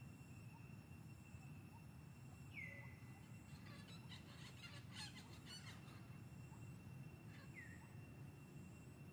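Faint outdoor ambience: a steady thin high tone, two short high calls that drop in pitch about five seconds apart, and a patter of faint chirps or clicks between them.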